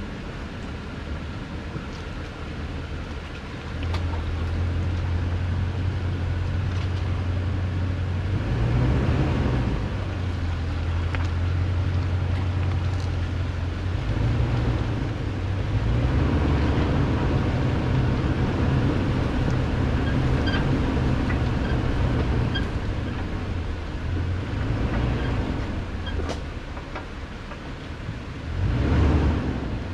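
2018 Toyota Tundra's V8 engine running at slow trail speed on a dirt track, its low drone stepping up and down with the throttle, with a few light clicks and a louder swell near the end.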